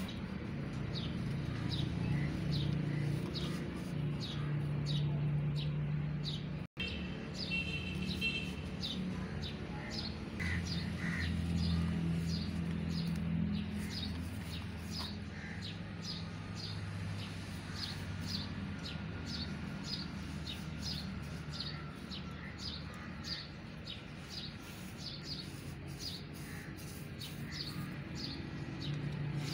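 Hands squeezing and crumbling damp white cement in a plastic tub, under a bird chirping about twice a second and a steady low hum. The sound drops out for an instant about seven seconds in.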